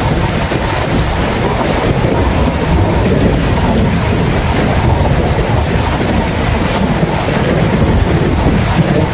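Heavy rain falling steadily over a continuous low rumble, with no distinct thunderclaps.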